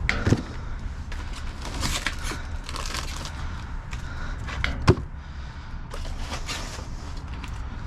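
Rummaging through bagged produce in a dumpster: scattered rustling and handling noises, with a sharp knock about five seconds in, over a steady low rumble.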